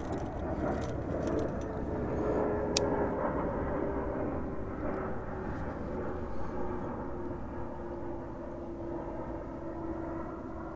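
Airplane engine drone passing overhead, one steady tone falling slowly in pitch as it fades. A single sharp click about three seconds in.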